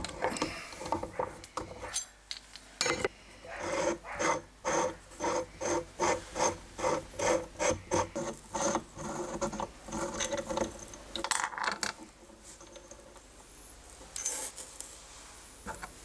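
The rusty threaded chuck shell of an old hand drill being twisted off in a vise, its rusted threads grating in a quick run of short scraping strokes, about two to three a second, followed by a couple of louder single scrapes.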